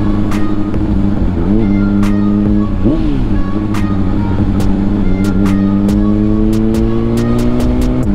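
Honda CBR600RR's inline-four engine running at low road speed, blipped briefly twice and then slowly rising in pitch as the bike picks up speed.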